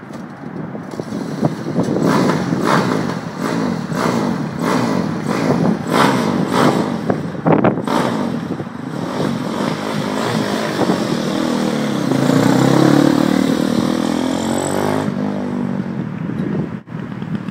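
Yamaha YZ450F single-cylinder four-stroke engine on a superkart, revved in a string of short sharp throttle blips about once a second, then held up and swept through a longer rise and fall in pitch as the kart pulls away.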